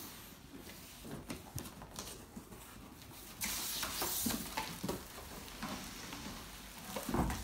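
Cardboard box being opened by hand: flaps and cardboard rustling and scraping, with plastic wrapping crinkling. There is a louder stretch of scraping about three and a half seconds in, lasting about a second, and a low thump near the end.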